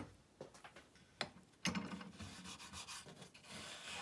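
Hand rubbing over glued-up pallet-wood boards, feeling the ends for evenness. A couple of light taps come first, then a soft, steady rubbing in the second half.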